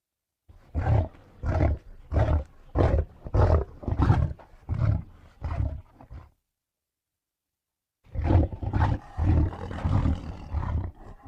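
Tigon (lion–tiger hybrid) roaring in a run of about ten short, rhythmic pulses, one every half second or so, fading toward the end. After a pause a second run of roars follows.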